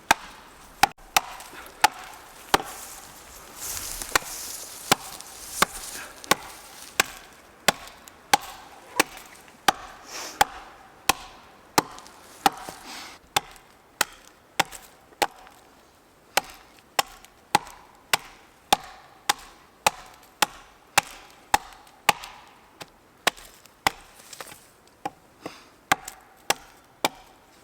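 An axe chopping into the trunk of a dry, dead spruce tree: a steady series of sharp strikes, about one and a half a second.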